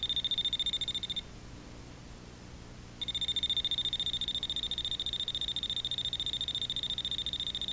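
Voltage-sensing screwdriver (non-contact voltage tester) sounding its fast-pulsing, high-pitched alarm beep, which breaks off about a second in and starts again about two seconds later. The owner attributes its going off to a spirit, since there is no outlet or wiring nearby.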